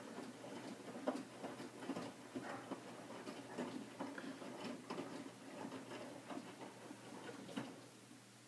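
Hotpoint Aqualtis washing machine drum turning during the main wash, with the wet laundry tumbling and water sloshing in irregular soft knocks and clicks. The tumbling stops shortly before the end as the drum pauses, leaving a faint steady hum.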